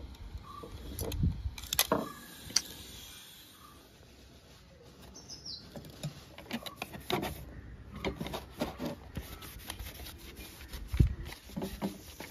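Metal and plastic parts of a Mercedes-Benz W123 instrument cluster being handled and worked with a screwdriver: scattered small clicks, taps and rubbing, with a louder knock about eleven seconds in.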